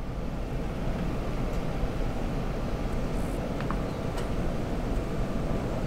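Wind buffeting the microphone: a steady, uneven low rumble with a hiss over it.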